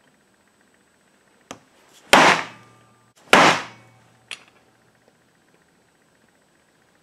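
Two hard blows of a soft mallet on the back of a homemade steel knife blade, driving it through a cast lead rod into a wooden cutting block, about a second apart, each with a short ringing decay. A light tap comes just before the first blow and another after the second.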